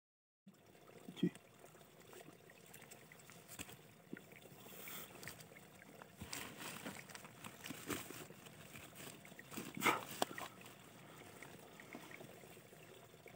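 Faint rustling and scraping of a burlap sack and loose soil as a hand presses the sack down into a hole in the ground, with a couple of sharper crackles about a second in and near ten seconds, over a faint trickle of running water.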